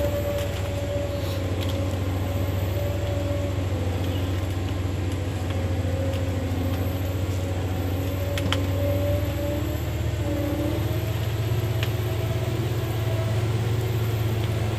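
Ponsse Elephant King forwarder's diesel engine running steadily under load as the laden machine travels slowly, a deep hum with a higher whine over it that wavers a little in pitch.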